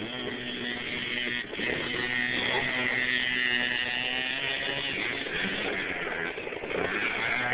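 Mini dirt bike's small motor buzzing as a child rides it, the pitch rising and falling with the throttle, with a brief drop about a second and a half in and another near the end.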